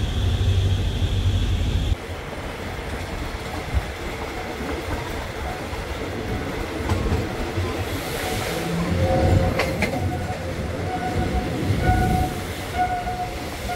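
Train running along the tracks: a steady low rumble and rattle with scattered knocks. The sound drops abruptly to a quieter rumble about two seconds in, and faint steady tones come in near the end.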